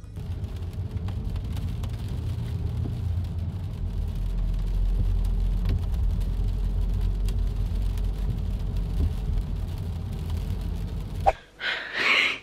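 Car driving on a rain-wet road, heard from inside the cabin: a steady low engine and road rumble with tyre hiss. It cuts off suddenly near the end, and a brief louder noise follows.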